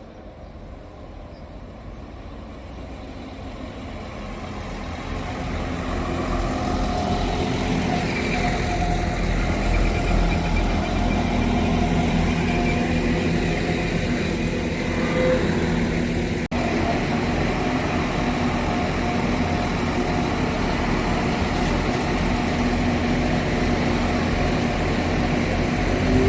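Diesel train engine growing louder over several seconds as it approaches, then running loud and steady close by with a deep rumble.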